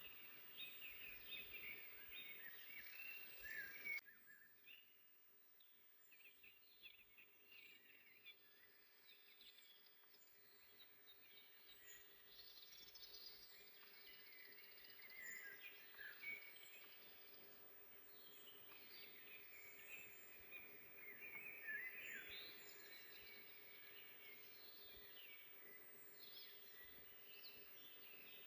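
Several small songbirds singing and chirping faintly over a soft background hiss. The sound drops suddenly about four seconds in, and the birdsong grows busier again in the second half.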